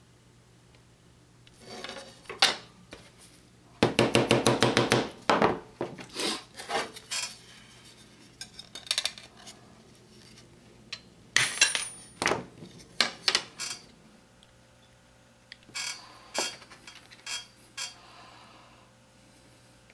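Steel fret wire being worked on a cigar box guitar fretboard and snipped off with nippers: sharp metallic clicks and snaps, one with a brief high ring, and a fast rattling run of clicks about four seconds in.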